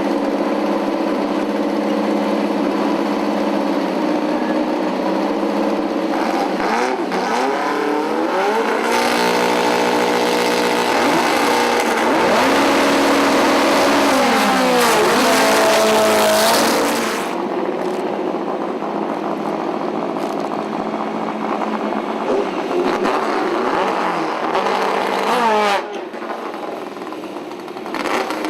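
Volkswagen drag cars' engines idling and revving, then a loud stretch of hard acceleration with the engine pitch rising and falling for about eight seconds, as at a drag launch. After that it drops back to idling and more revs.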